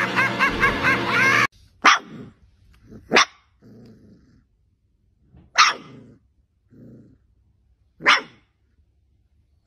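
A loud, high-pitched wavering sound cuts off suddenly about a second and a half in. A very young puppy then gives four short, sharp, high yaps a second or two apart, with softer low growly grunts between them.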